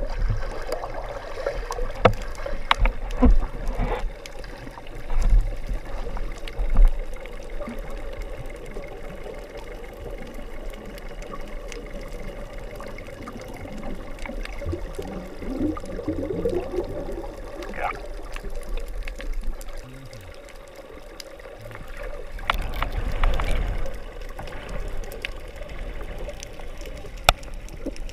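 Underwater sound picked up by a GoPro in its waterproof housing: water noise with low thumps from the swimmers' movement in the first several seconds and again near the end, bubbling about halfway through, and a faint steady hum throughout.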